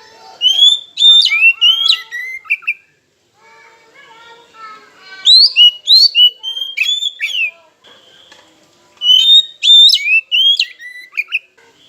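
Oriental magpie-robin (kacer) singing: three bouts of loud, clear whistled phrases of quickly rising and falling notes, each about two seconds long, with fainter, lower chatter in the gaps between them.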